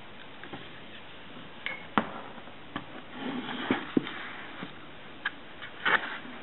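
Light clicks and knocks at irregular intervals, with a brief scraping rustle a little after three seconds in and the loudest knock near the end, from handling a cardboard shoe-box automaton and its small parts.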